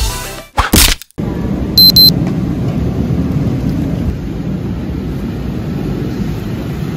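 Two short high electronic beeps about two seconds in, then a steady low rumble.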